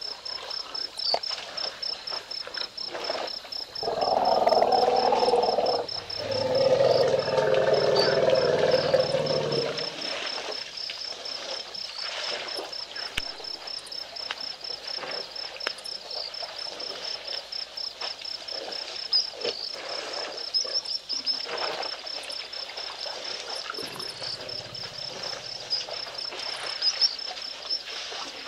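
Night insects chirping in a fast, steady, high-pitched pulse. About four seconds in, a loud, low animal call comes in two long parts lasting about six seconds. A fainter low call follows near the end.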